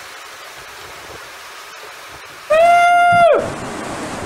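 Hurricane wind rushing over the camcorder microphone. About two and a half seconds in, a loud, steady high-pitched tone sounds for under a second, then slides down in pitch as the recording cuts off. A louder wind noise follows.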